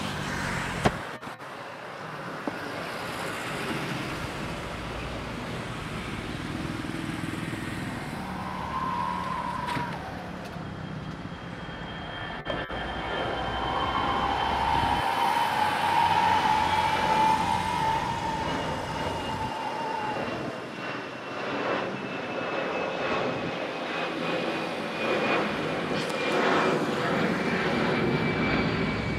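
Airbus A320-family jet airliner taking off and climbing out, its engines running continuously, with a high whine that slides slowly down in pitch as it draws away. A single sharp tick sounds about a second in.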